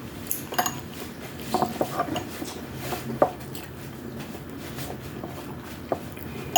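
Cutlery clinking and tapping against plates and bowls while eating: scattered sharp clinks, a cluster of them about one and a half to two seconds in and a louder one about three seconds in.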